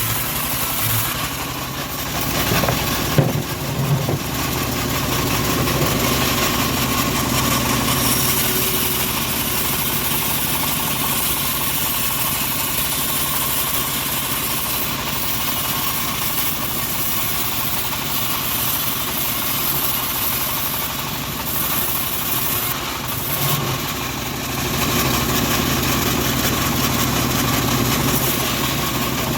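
Homemade bandsaw sawmill running steadily while milling teak, with a few sharp knocks about three to four seconds in.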